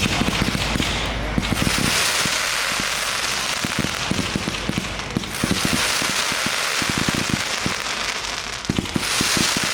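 A 138-shot fireworks combination cake firing: rapid launch thumps, several a second, under dense crackling from the bursting effects.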